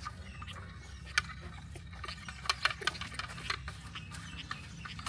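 Small wooden toy cart rolling over a paved path, its wheels rattling and clicking in irregular light taps several times a second over a low steady hum. The clicks are loudest about two and a half seconds in.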